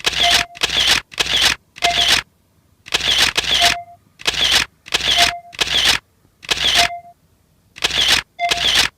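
Comic sound effect dubbed onto a cat's kneading, one hit for each paw press: about a dozen short, sharp bursts in an uneven stepping rhythm, often in pairs.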